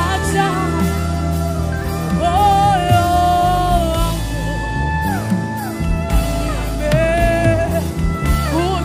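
Live gospel worship band music: a woman sings long held notes that slide up and down in pitch over a full band with drums and cymbals.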